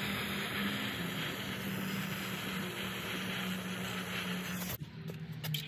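Handheld gas torch burning with a steady hiss, heating the oxygen sensor's boss on a cast-iron exhaust manifold to free the seized sensor. The hiss cuts off sharply near the end, followed by a few light clicks.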